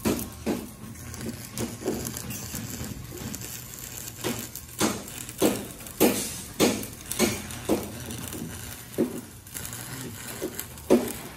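Background music with a steady beat of plucked notes, about one every 0.6 seconds.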